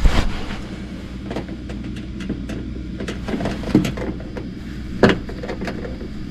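Hand tools and screws being worked on a furnace's sheet-metal panel: scattered clicks and knocks, with a louder knock at the start and another about five seconds in, over a steady low hum.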